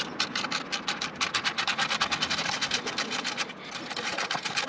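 Ratchet wrench clicking rapidly, about ten clicks a second, as a bolt is undone, with a brief break about three and a half seconds in.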